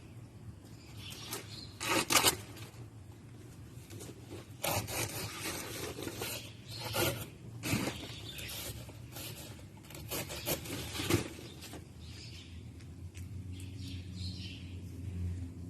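Irregular rasping and rustling strokes of thick grass and brush being cut and cleared by hand.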